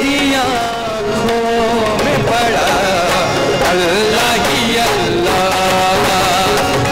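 Live Sufi qawwali-style song: male voices singing a wavering, ornamented melody over harmonium, keyboard and hand-drum accompaniment.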